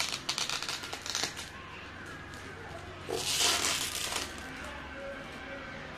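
Clear plastic bag crinkling and rustling as a cardboard box is handled and pulled out of it: a run of small crackles in the first second or so, then a louder rustle about three seconds in.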